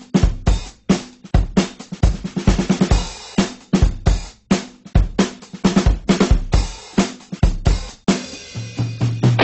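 Background music: a drum kit playing a steady beat with kick drum, snare and cymbals. A low held note comes in near the end.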